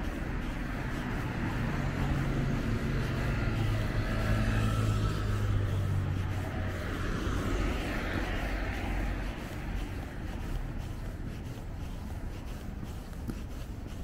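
Street traffic: cars driving past on the road alongside, a low engine hum and tyre noise that swell to their loudest about four to six seconds in and ease off after about eight seconds.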